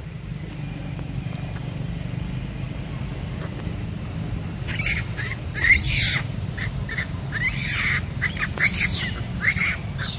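Macaques shrieking: a run of loud, high-pitched screeching calls that starts about halfway through, over a steady low rumble of wind on the microphone.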